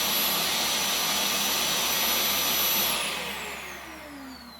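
Vax Air Lift Steerable Pet Max upright vacuum cleaner running with its brush roll disengaged, a loud steady suction motor with a high whine. It is switched off about three seconds in, and the motor winds down with a falling whine.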